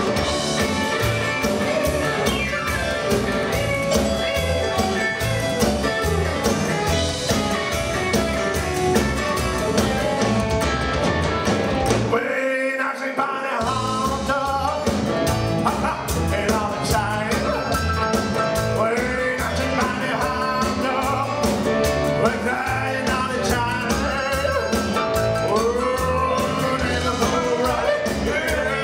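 Live rock and roll band playing: electric guitar, keyboard piano, upright double bass and drums, with a man singing. About twelve seconds in the bass and drums drop out for about a second in a short stop-time break, then the full band comes back in.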